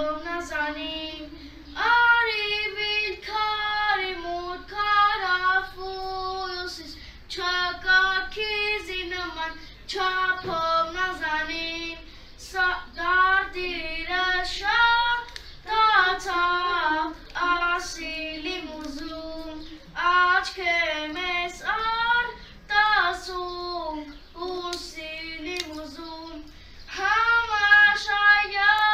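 A young boy singing solo and unaccompanied, in melodic phrases with short pauses between them.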